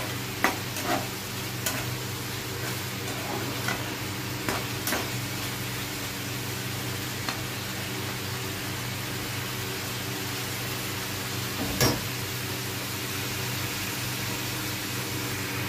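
Chicken sizzling in a masala gravy in a nonstick frying pan over low heat. A spatula stirs and scrapes through it, tapping against the pan now and then, with one louder knock about three-quarters of the way through. A steady hum runs underneath.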